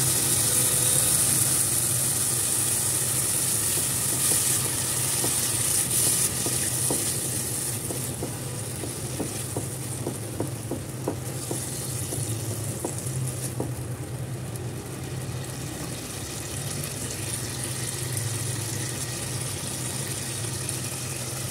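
Tomato purée sizzling as it hits hot oil and fried spices in a kadhai, loudest at first and then settling down, while a wooden spatula scrapes and taps the pan as it is stirred. A steady low hum runs underneath.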